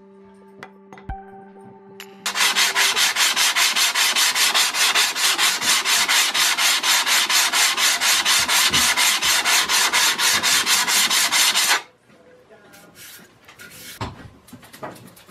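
Cast-iron sole of a Stanley No. 120 block plane being lapped flat by hand on sandpaper: a loud, even run of rapid back-and-forth scraping strokes that stops abruptly near the end, followed by quieter knocks and a brush sweeping off the metal dust.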